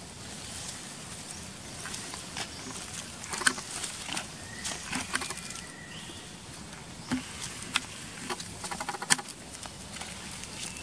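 Scattered crackles and rustles in dry leaf litter and grass, irregular and sharp, with a quick run of clicks near the end and a few faint short whistles in the middle.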